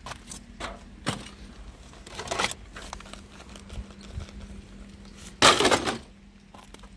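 Hard plastic scrap being handled: a few light knocks and rattles, then about five and a half seconds in a louder clatter as a cordless drill lands back on the pile of plastic meter housings. A faint steady hum runs underneath.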